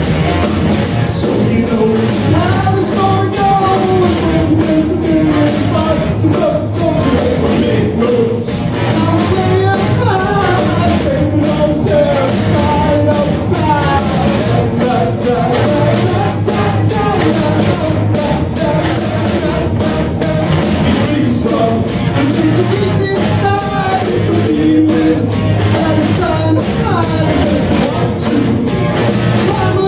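A rock band playing live: drum kit, electric bass and electric guitar at a steady loud level, with a wavering melody line over the top.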